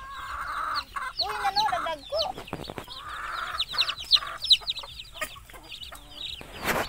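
A group of native chicks peeping in many short, high calls, with lower clucking calls among them. A short knock comes near the end.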